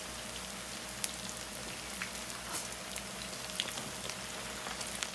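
Plantain slices frying in a pan of hot oil: a steady sizzle with scattered sharp pops. This is the first fry of the slices for tostones.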